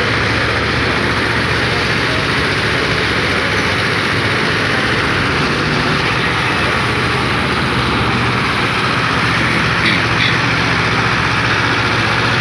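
A heavy engine, likely on road-building machinery, running steadily with a constant drone that does not change in pitch or loudness.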